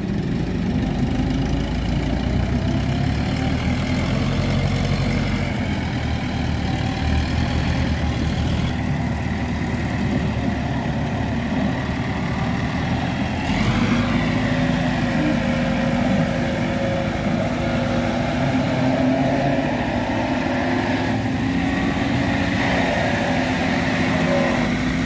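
Farm tractor's diesel engine running under load as it pulls a heavily loaded sand trolley over soft ground, its engine note stepping up about halfway through.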